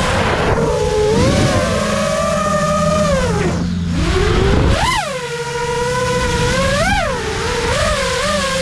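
FPV drone motors whining, the pitch dipping low about three and a half seconds in, then rising sharply in quick throttle punches about five and seven seconds in. Drift cars' engines run lower underneath.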